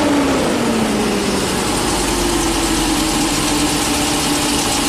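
Ford E450's 6.8-litre V10 engine running at a fast idle of about 1,000 to 1,150 rpm, heard from inside the bus cab. It is misfiring, with cylinders 8 and 9 dead during a scan-tool power balance test.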